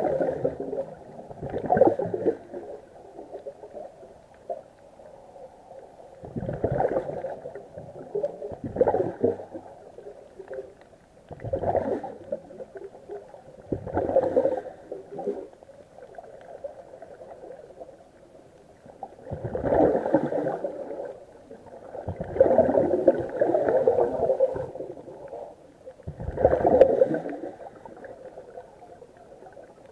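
Exhaled air bubbling out of a scuba regulator underwater: gurgling bursts of about a second each, repeating every two to three seconds in time with a diver's breathing, about nine in all.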